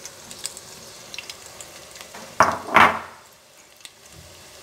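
Batter-coated bokful flowers frying in hot oil in a kadai: a steady sizzle with scattered crackles. About halfway through come two loud hissing bursts, a moment apart, as freshly battered pieces go into the oil.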